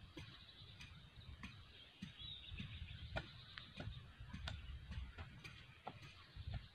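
Faint, irregular clicks and ticks over a low, gusting wind rumble on the microphone, with a short bird chirp about two seconds in.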